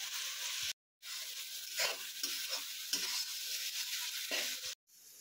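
Food sizzling in hot oil in a pan while a spatula stirs it, with several short scrapes against the pan. The sound cuts out to silence twice for a moment.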